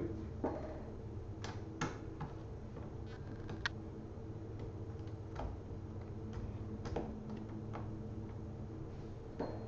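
Scattered light clicks and taps of a screwdriver backing out the small screws at the top of a laptop's screen assembly, over a faint steady hum.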